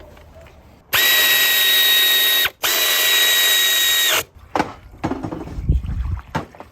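Handheld power tool motor running in two steady bursts of about a second and a half each, with a brief stop between, driving in a fastener. Then a few knocks and clatter of parts being handled.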